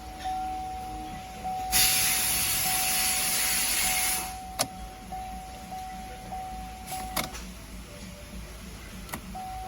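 A car's warning chime, a steady tone with short regular breaks, typical of the key sitting in the ignition. About two seconds in, a loud hiss lasts for a couple of seconds, and there are a few sharp clicks.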